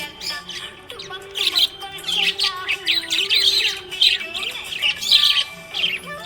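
Budgerigars chirping and warbling in a busy, unbroken stream of short high chirps, with a song's melody playing underneath.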